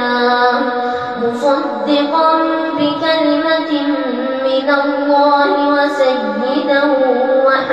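A boy's voice reciting the Quran in melodic tajweed chant, drawing out long held notes that step up and down in pitch with only brief breaths between phrases.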